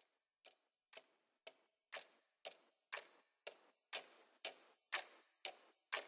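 Clock ticking, two ticks a second, growing steadily louder.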